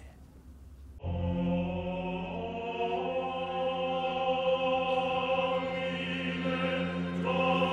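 Choral music enters about a second in: voices hold a slow, sustained chord over a low drone, and a higher note joins near the end.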